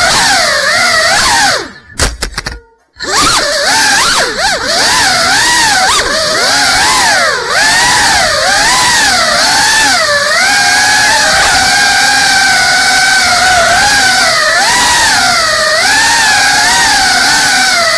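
Whine of a GEPRC Cinelog 35 3.5-inch cinewhoop's brushless motors and propellers in fast flight, the pitch rising and falling constantly with the throttle. About two seconds in it cuts out almost completely for about a second, then picks back up.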